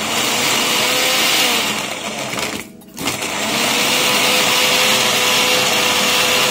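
Electric countertop blender running, grinding a thick paste of shallots, garlic, turmeric, candlenut and red chili with a little oil. It stops briefly at about two and a half seconds in, then starts again and runs on.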